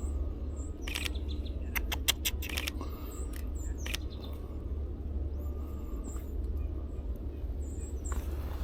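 Small birds giving short, thin, high chirps again and again, with a quick run of sharp clicks about two seconds in, over a steady low rumble.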